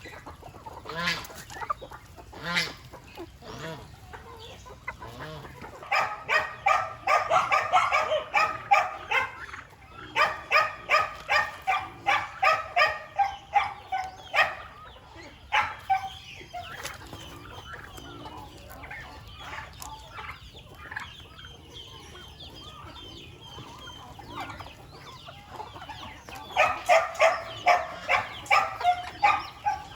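Poultry calling in three bouts of quick repeated notes, about three a second, with quieter calls in between.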